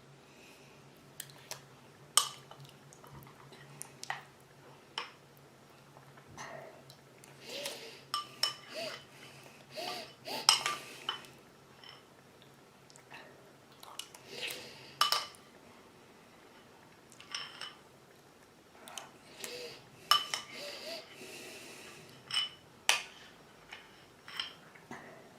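Cutlery or small hard objects clinking and tapping against a dish, in scattered sharp clicks with short pauses between, over a faint steady hum that stops about halfway through.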